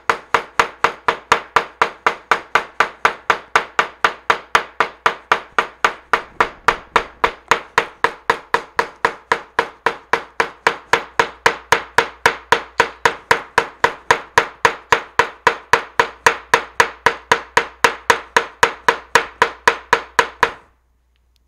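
Hammer pounding a leaf through a paper towel and paper on a cutting mat, about four even strikes a second, to beat the leaf's pigment into the paper. The strikes stop shortly before the end.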